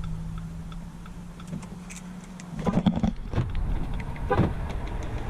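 Hazard-light flasher of a 2019 Dodge Journey ticking over a low steady hum, with a few handling knocks in the second half.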